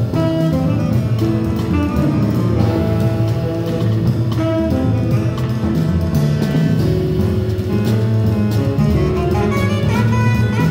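Live jazz quartet playing: tenor saxophone carrying the lead line over grand piano, upright bass and a drum kit with steady cymbal work.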